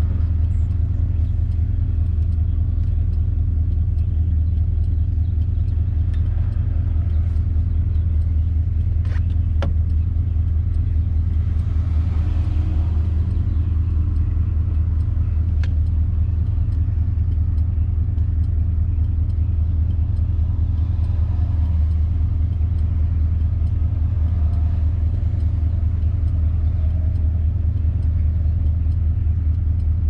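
1957 Ford Thunderbird's V8 running steadily on the move: a low, even engine drone with road noise. A few faint clicks sound about a third of the way in and about halfway, with a brief swell of rushing noise between them.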